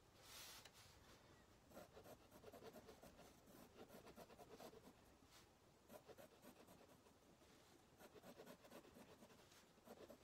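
Faint scratching of a pen on sketchbook paper, in clusters of quick short strokes with brief pauses between them, as lines and shading are drawn.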